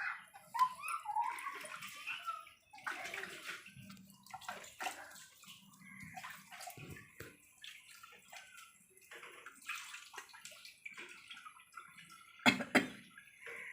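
Water splashing and sloshing in short, irregular bursts, with one sharp knock near the end.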